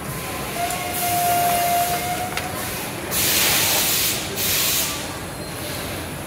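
Pressurised air hissing in three bursts, the loudest and longest about three seconds in, over steady factory-floor noise, with a brief steady tone near the start.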